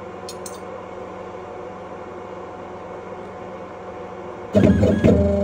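Ghost Gunner desktop CNC mill humming steadily. About four and a half seconds in, a much louder motor whine with a buzzing pitch starts as a stepper-driven axis moves the table.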